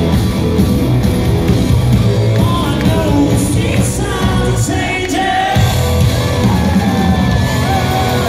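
Live rock band playing at full volume, with a lead singer singing and shouting over guitars, bass and drums, heard from within the audience in a large hall.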